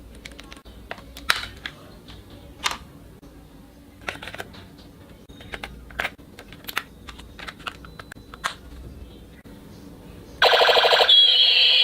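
Scattered plastic clicks and taps of toys being handled. About ten seconds in, a toy machine gun's electronic sound effect starts, much louder: a rapid rattle, then a high wavering tone.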